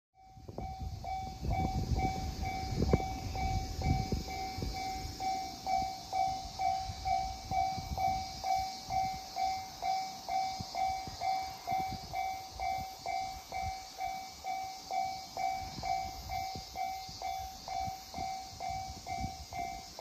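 Japanese railway level-crossing warning bell ringing steadily, a repeated electronic ding about twice a second, signalling a train approaching. A low rumbling noise lies underneath, heaviest in the first few seconds.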